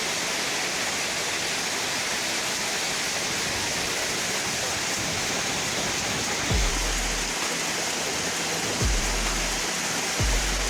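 Steady rushing noise, even and unbroken. About six and a half seconds in, deep bass thuds of background music come in and repeat every second or two.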